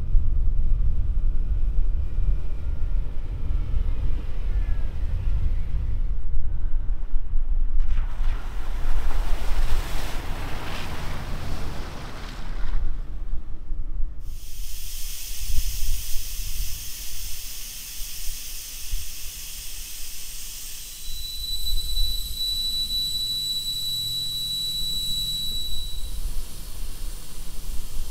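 Wind rumbling on the microphone, then a steady hiss of air let out through the valve of a pickup's all-terrain tyre, with a thin whistle for a few seconds near the end: the tyre being aired down for driving on sand.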